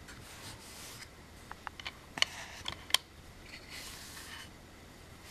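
Light handling noise: a few sharp, light clicks between about one and a half and three seconds in, with soft rustling before and after.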